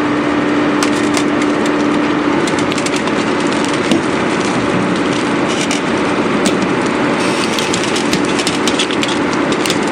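Concrete pile cracking and crunching as a hydraulic pile breaker crushes it: a constant grinding noise studded with many sharp cracks. A steady low hum stops about two and a half seconds in.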